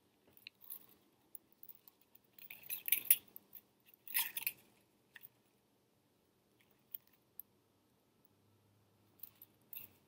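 Small jewelry pliers clicking and scraping on thin silver wire as it is wrapped around a bead, with faint metallic ticks and handling rustles. The sounds come in two short clusters about three and four seconds in, then as a few scattered single ticks.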